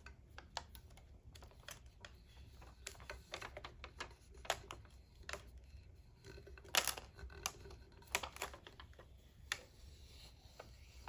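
Faint, irregular clicks and taps of long fingernails and clear plastic transfer tape as a vinyl heart is pressed and smoothed onto a glitter-coated tumbler. The loudest clicks come about seven and eight seconds in.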